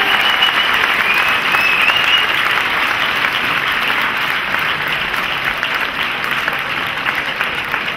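Large audience clapping steadily, easing off slightly near the end.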